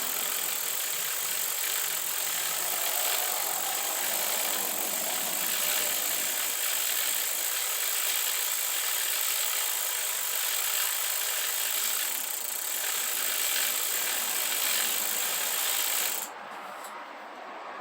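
Bicycle chain being run through a Park Tool CM-5.3 Cyclone chain cleaner filled with soapy water as the crank is turned: a steady scrubbing noise of chain through the brushes, which stops suddenly near the end.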